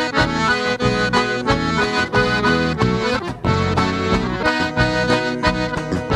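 Button accordion playing an instrumental break in a gaúcho-style country song, over a steady rhythm accompaniment.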